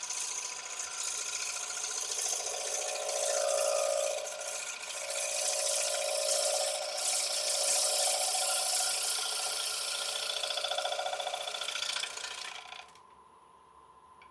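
Bowl gouge cutting the outside of a walnut bowl spinning on a wood lathe: a sustained scraping cut with a rapid, fine chattering texture. The cut stops abruptly near the end, leaving only the lathe's faint steady whine.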